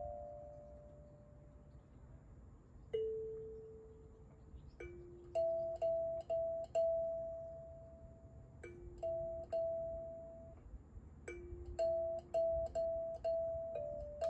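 Kalimba played slowly: single plucked metal tines, each note ringing on and fading, with short runs of three or four notes now and then and a faint click of the thumb at each pluck.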